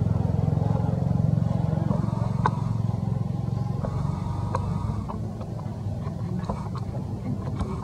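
An engine running steadily, a low pulsing hum that drops a little in level about five seconds in, with a few faint clicks over it.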